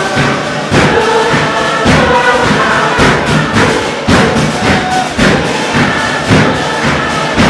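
Tuvaluan fatele: a group of voices singing in chorus over loud, hand-beaten percussion, with a heavy beat about once a second.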